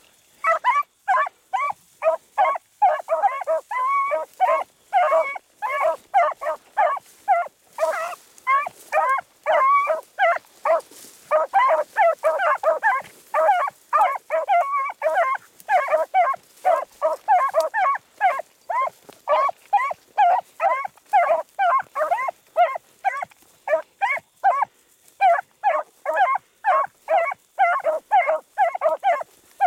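A pack of beagles baying as they run a rabbit's track. Their overlapping cries come several times a second, almost without a break.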